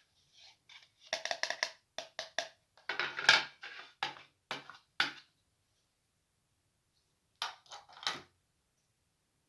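Small plastic toy kitchen pieces being handled: runs of quick, sharp clicks and taps with a short scrape, a pause, then a few more taps near the end.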